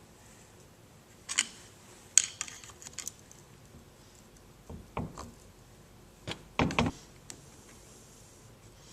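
Metal parts clinking and knocking as thin steel oil tubes are worked out of an automatic transmission's valve body: a few scattered sharp clicks and clacks, the loudest cluster about two-thirds of the way through.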